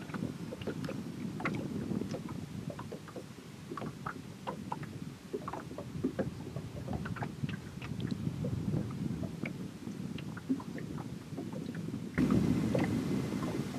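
Water lapping against the hull of a small boat sitting still on open water, a low wash with many small irregular splashes and knocks, and a little wind. It gets louder about twelve seconds in.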